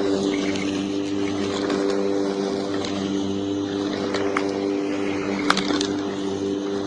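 Electric lawn mower running steadily while cutting grass: a steady motor hum over a rushing noise, with a few sharp ticks, the loudest about five and a half seconds in.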